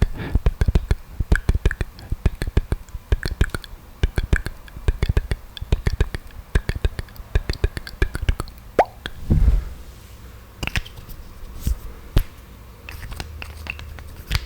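Close-miked wet mouth sounds made for ASMR spit painting: quick lip smacks, tongue clicks and saliva pops, packed tightly for the first several seconds and then sparser.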